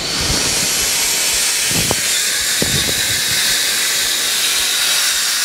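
Compressed air hissing steadily out of the CobraView forward skipper ball nozzle inside a floor-vent duct, blasting debris down the run. A few faint knocks come about two and three seconds in.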